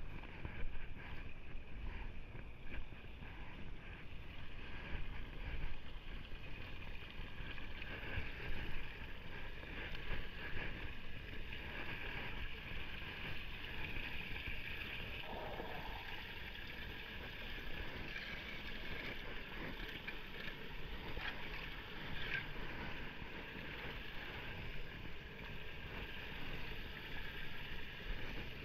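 Shallow floodwater sloshing and draining around a leaf-clogged street storm-drain grate as debris is cleared, with a low wind rumble on the microphone.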